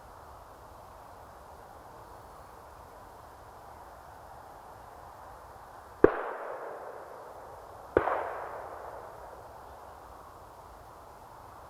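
Two shotgun shots about two seconds apart, each a sharp report followed by a long echo dying away through the forest.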